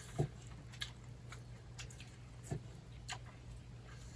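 Quiet eating at a meal: a few soft scattered clicks and taps, as of chopsticks and dishes, with chewing, over a faint low steady hum.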